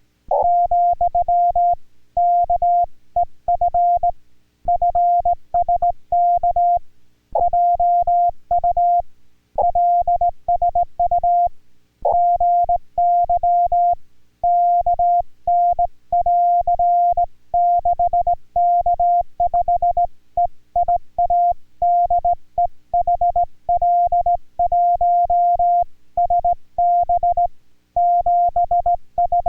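Morse code on an amateur radio: a single steady tone of about 700 Hz keyed on and off in quick dots and dashes, with short gaps between characters and words.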